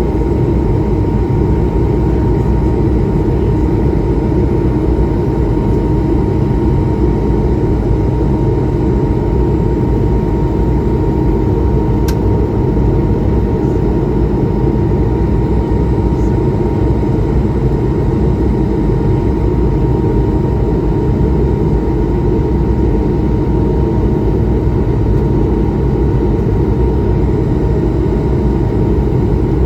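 Cabin noise inside an Airbus A220-300 jet with Pratt & Whitney PW1500G geared turbofans: a loud, steady, deep rumble of engines and airflow with a thin steady whine above it. A faint click sounds about 12 seconds in.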